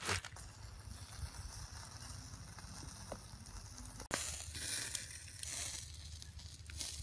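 Marinated chicken sizzling on skewers over hot charcoal, a faint steady hiss with a low rumble beneath. It turns louder suddenly about four seconds in.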